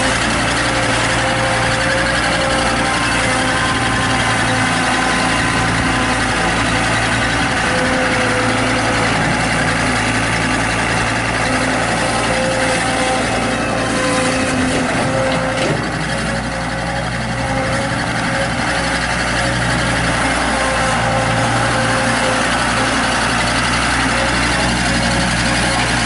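Case 1845 skid steer's diesel engine running steadily while the loader drives around, its level dipping briefly a little past halfway.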